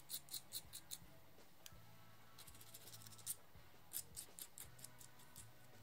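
Needle file rasping on a tiny brass part in quick, even strokes, about five a second, in three runs: one at the start, one around the middle and one near the end.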